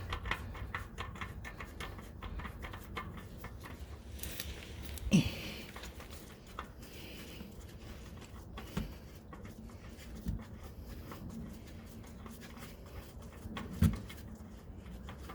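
Faint scuffing and ticking with four short dull knocks, the loudest about five seconds in: a new oil filter being threaded onto its mount by hand.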